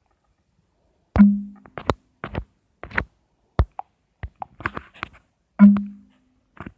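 Handling noise: a series of sharp clicks and knocks. Two louder thumps, about a second in and near the end, each ring briefly with a low tone.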